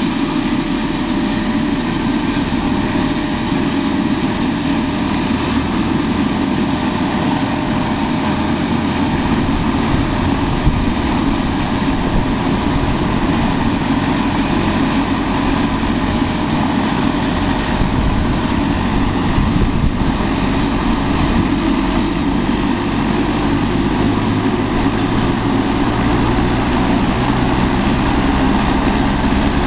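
Eurocopter AS350 helicopter's turbine engine running on the ground during start-up, with the main rotor turning slowly: a steady turbine whine and rush that grows slightly louder and deeper near the end.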